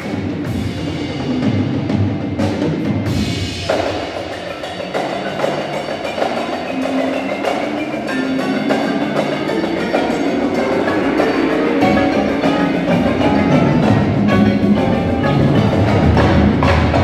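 Indoor percussion ensemble playing: mallet keyboards such as marimbas ringing over drums, with many sharp strikes, growing gradually louder toward the end.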